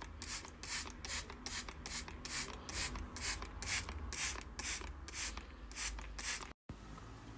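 Faint, regular scratchy rubbing strokes, about two and a half a second, that stop abruptly near the end.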